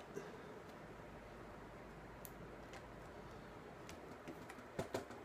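Faint, scattered clicks of a small screw being fitted into a laptop screen's hinge, with a couple of louder clicks close together near the end.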